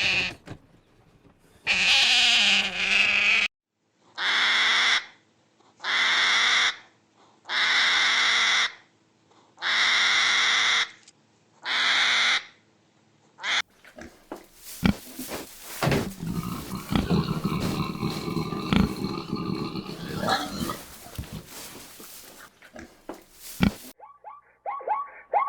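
Animal calls: a run of about six loud, harsh cries, each about a second long with short gaps between, followed by a longer mixed stretch of lower calls and sharp clicks.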